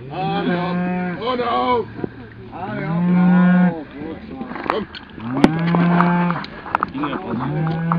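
Highland cattle mooing: four long, steady moos of about a second each, with a few sharp knocks in between.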